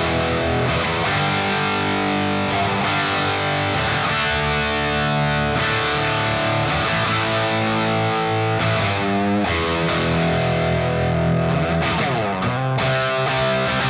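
Overdriven electric guitar played through an MGL50 head, a 50-watt valve amp modelled on the late-70s Marshall JMP 2204, with the gain at 6, into a two-speaker British-style slant cab with Greenback-type speakers. Ringing distorted notes and chords, with a couple of sliding pitch glides.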